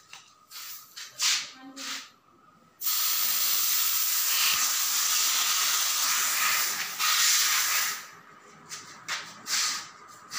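Aerosol spray-paint can spraying through a cardboard stencil onto a wall: a few short bursts of hiss, then one continuous spray of about five seconds, then several short bursts again near the end.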